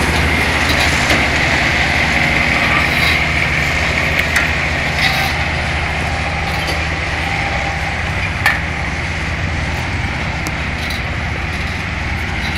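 An engine running steadily, with a few light knocks and one sharper knock about eight and a half seconds in.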